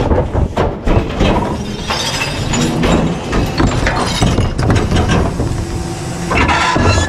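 Garbage truck compactor crushing a load of trash: continuous crunching and cracking with many sharp breaks, like glass and rigid plastic giving way.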